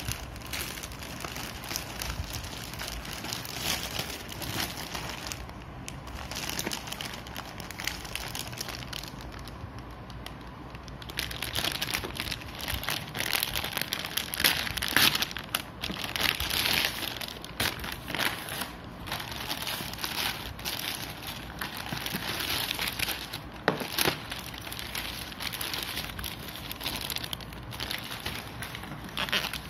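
Plastic packaging crinkling and rustling as hands tear open a grey plastic courier mailer and handle the clear plastic bags around cable-reel extension sockets, busier and louder from about eleven seconds in.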